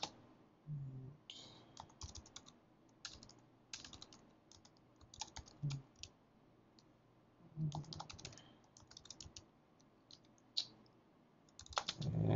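Computer keyboard typing: quick runs of keystrokes in short bursts with pauses between them, as shell commands are typed in.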